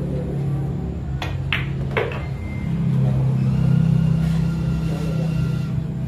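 A pool shot: three sharp clicks of cue tip on ball and balls striking, all within about a second, starting about a second in. Under them runs a steady low hum that swells a little in the middle.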